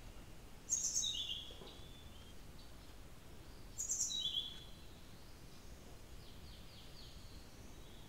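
Blue-throated flycatcher singing: two short phrases about three seconds apart, each opening with high notes and dropping to lower notes, with a faint run of quick notes later.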